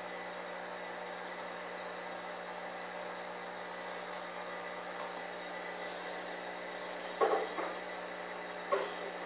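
Steady mechanical hum with several fixed tones in it. About seven seconds in come two short knocks close together, and one more just before the end.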